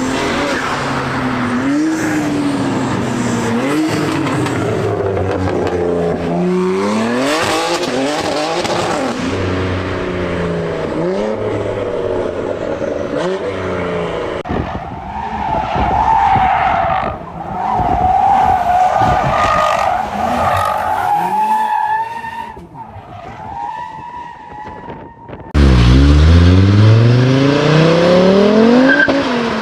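Several high-performance car engines revving and accelerating hard in turn, their pitch sweeping up and down through gear changes. In the middle there are several seconds of tyres squealing. Near the end one engine revs very loudly with a fast rising pitch.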